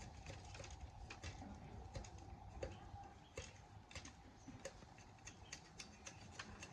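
Faint, irregular light clicks and taps, a few a second, over a low steady hum.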